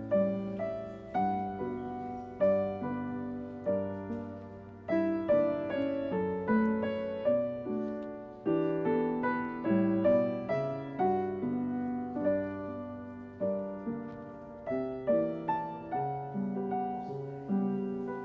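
Background music: a gentle solo piano piece playing melody and chords, each note struck and fading.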